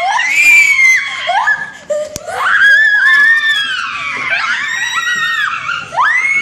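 Young girls screaming in a string of long, high-pitched shrieks, mixed with laughter.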